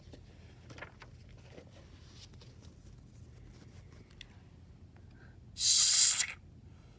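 A paper page of a picture book turned with one brisk swish about six seconds in, after faint rustles of the book being handled.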